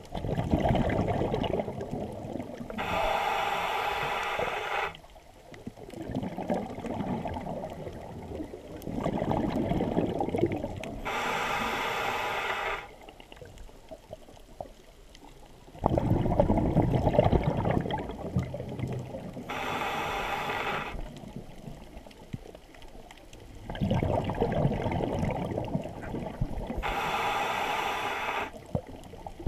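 Scuba diver breathing through a regulator underwater: four slow breaths, each a rumble of exhaled bubbles followed by a hissing inhale through the regulator, about every eight seconds.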